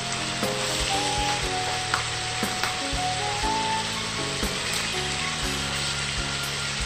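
Cubes of pork belly sizzling steadily as they fry in oil in a pan, with a few sharp clicks of metal tongs turning the pieces.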